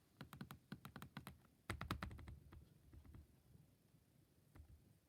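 Faint computer keyboard typing: a quick run of key clicks through the first two and a half seconds, then a few scattered clicks.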